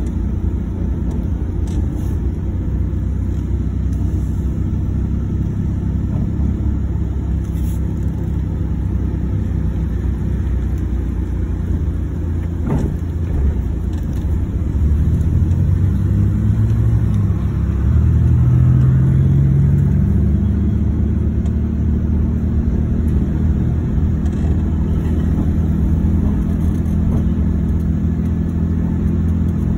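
Car engine and road rumble heard from inside the cabin while driving. About halfway through, the engine note rises as the car speeds up, then holds steady.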